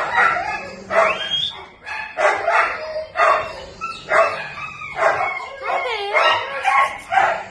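Dog barking repeatedly, about one bark a second, some barks with a wavering, yelping pitch.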